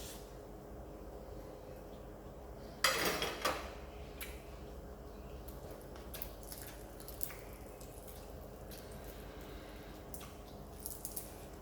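A loud crunchy bite into deep-fried fish about three seconds in, followed by faint scattered clicks and small mouth and utensil sounds over a low steady hum.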